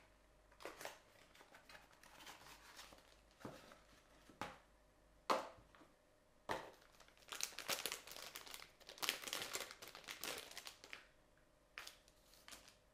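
Crinkling and rustling of a Raspberry Pi 2's packaging being opened by hand, its cardboard box and its metallic anti-static bag, with a few sharp clicks. The crinkling is loudest and most continuous in the second half.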